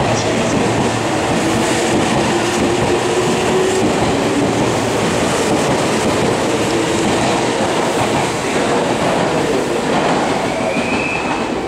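Meitetsu 2200 series electric train pulling out along the platform and running past, a steady loud rumble of the cars with clattering wheels. A brief high squeal comes near the end.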